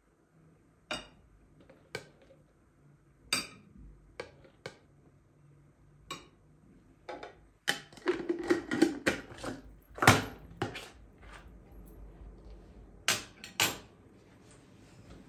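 Scattered knocks and clicks of hard objects being handled and set down, with a denser run of clattering about eight to ten seconds in and two sharp knocks near the end.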